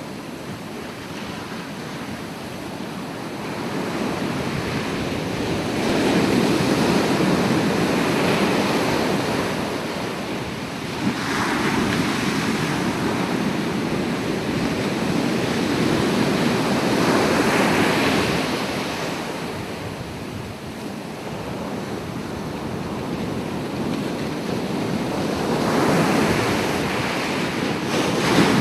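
Ocean waves breaking and washing on the shore, a continuous surf that swells and falls back every several seconds.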